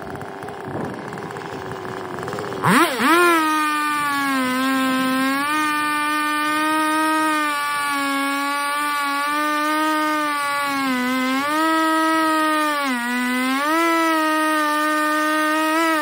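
Husqvarna 395XP two-stroke chainsaw with a 36-inch bar, milling a log lengthwise in an Alaskan chainsaw mill. It runs throttled back at first, then about three seconds in it revs up to a high, steady full-throttle note, and its pitch dips briefly a few times as it cuts.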